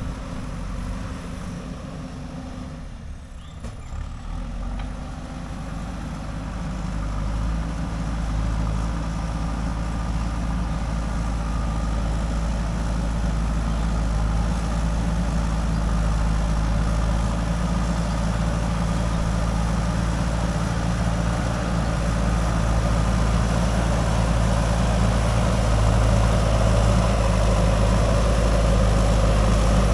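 JCB 3DX backhoe loader's diesel engine running steadily, dipping briefly a few seconds in and then growing louder.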